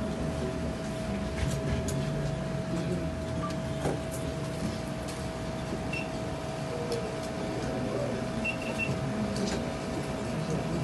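Steady room hum with one constant tone over a low rumble, with scattered faint clicks and a few short high beeps about six and eight seconds in.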